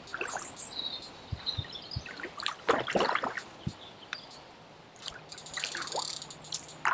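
Water splashing and sloshing in irregular bursts, about two and a half seconds in and again around five to six seconds in, as a hooked carp thrashes at the surface in shallow water: the fish is still fighting at the net.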